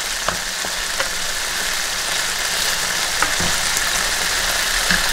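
Marinara sauce with sardines sizzling steadily as it heats in a nonstick skillet, with a few light clicks of the spatula against the pan.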